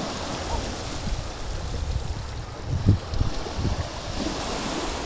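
Shallow surf washing and hissing over a flat sandy beach. A few low thumps come about three seconds in.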